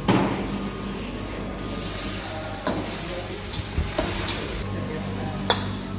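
Kway teow noodles sizzling in a hot wok as they are stir-fried, with a surge of sizzle at the start as two eggs go in. The metal spatula knocks and scrapes against the wok a few times.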